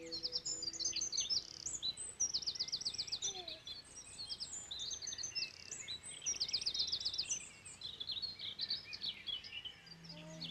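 Birds chirping and singing, several calls overlapping, with a rapid trill about two seconds in and another about six and a half seconds in.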